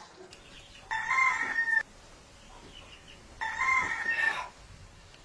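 A rooster crowing twice, each crow about a second long, the second about two and a half seconds after the first.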